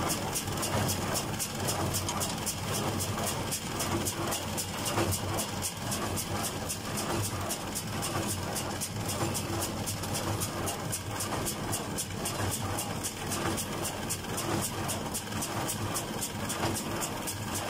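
Fendt 310 tractor engine running steadily while it drives a John Deere 349 small square baler picking up hay, heard from inside the tractor cab, with a fast, even ticking over the engine hum.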